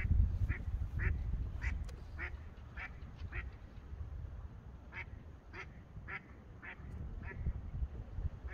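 Wind buffeting the microphone, with a bird giving two runs of short calls, about two a second, with a pause between them. The wind rumble is loudest at the start.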